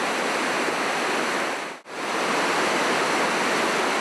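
Loud, steady rush of whitewater from a mountain waterfall and the rapids below it, briefly dipping just under two seconds in before carrying on.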